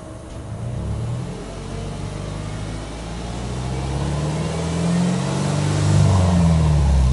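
Subaru Impreza 1.5i-S hatchback's 1.5-litre flat-four engine free-revved while parked, heard at the exhaust: a short blip about a second in, then a slower, longer rev that climbs and holds at its highest near the end.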